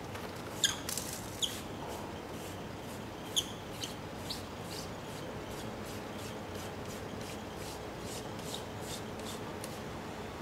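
Hand rubbing over paper pressed onto a raised sign to take a rubbing: a string of short, scratchy strokes, coming faster in the last couple of seconds, over a steady low background hum.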